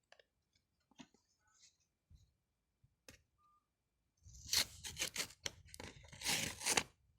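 Paper being torn open and rustled by hand: a run of rough ripping sounds starting about four seconds in, after a few faint handling clicks.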